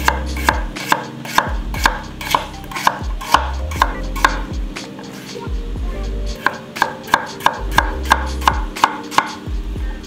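Chef's knife slicing peeled potatoes on a wooden cutting board: sharp knocks of the blade hitting the board, about two to three a second, with a pause of a couple of seconds in the middle.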